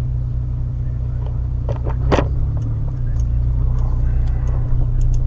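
2003 Honda Element's 2.4-litre four-cylinder engine and road noise while driving, a steady low drone. A sharp click sounds about two seconds in.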